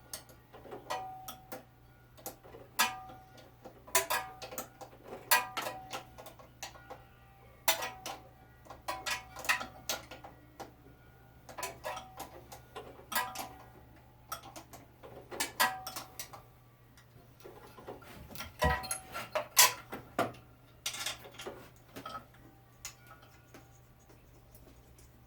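Metal hand tools clinking and tapping on a small engine's parts during a starter replacement: irregular sharp clicks, each with a short metallic ring, with a louder cluster of knocks about two thirds of the way through.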